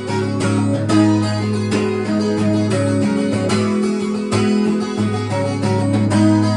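Acoustic guitar strummed in a steady rhythm, playing an instrumental passage of a song.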